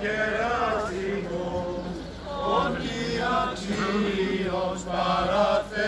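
Men chanting an Orthodox church hymn in long held notes that slide slowly between pitches.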